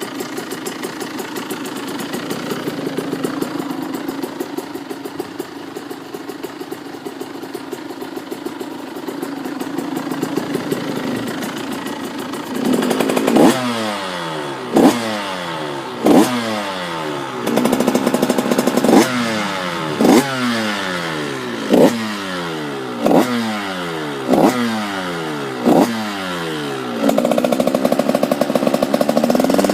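2013 KTM 85 SX two-stroke motocross engine, idling steadily for about twelve seconds. It is then blipped repeatedly, each rev rising sharply and falling back, with two longer held revs, the last near the end. The owner says the engine is running a bit rich.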